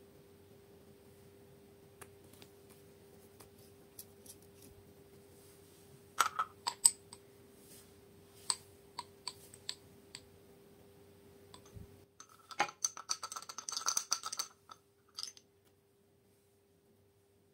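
Small clicks and taps of a nail polish bottle and its brush being handled, scattered at first and then a dense run of rapid clicking for about three seconds near the end, over a faint steady hum.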